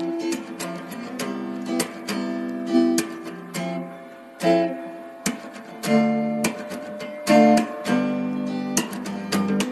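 Background music: acoustic guitar playing, with plucked notes and strummed chords that ring out and fade.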